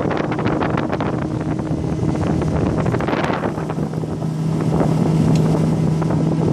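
Outboard motor of a speeding motorboat running steadily, its low hum growing louder about four seconds in, with wind buffeting the microphone throughout.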